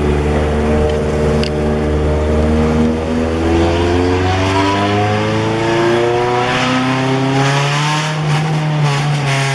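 Car engines revving and accelerating, their pitch rising and falling, with at least two engines heard at different pitches at once; one climbs again near the end.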